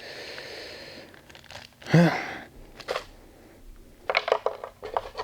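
Small shift-kit parts handled by hand: a light rustle, then a short vocal sound about two seconds in, then a single click and, from about four seconds in, a run of light clicks and clinks.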